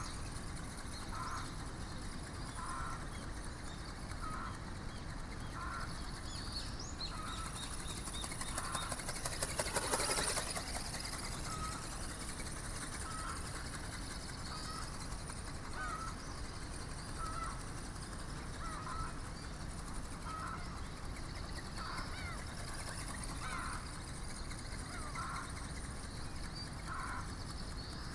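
Ornithopter's geared brushless motor and flapping wings passing close: a rapid fluttering clatter swells to a peak about ten seconds in and fades. Throughout, a bird calls in short notes about every second and a half.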